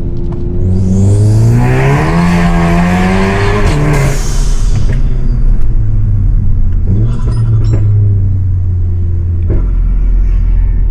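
Tuned, decatted Volkswagen Golf GTI Performance's turbocharged four-cylinder accelerating hard: the engine note rises with a loud rush of turbo and exhaust for about three seconds, then falls off suddenly. The car carries on with a steadier low exhaust drone, broken by a few short sharp cracks.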